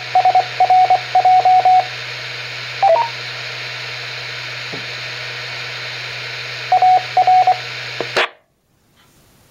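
Amateur-radio repeater signal on 146.970 MHz heard through a receiver's speaker: a single-pitch tone keyed on and off in short and long beeps, a short two-note beep about three seconds in, and more beeps near seven seconds, over steady hiss and low hum. About eight seconds in the carrier drops with a brief squelch burst and the radio goes almost quiet.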